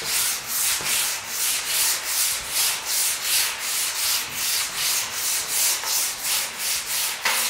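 A body file in a wooden holder rasping in quick, even strokes, about three a second, across a bare steel car bonnet under very light pressure. This is file-finishing to read the panel: the file cuts the high spots and skips the lows, showing up dips and pin dents.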